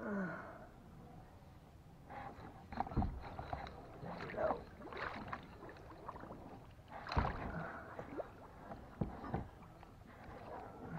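A kayak being paddled through shallow water: irregular paddle splashes and knocks, about a second or two apart.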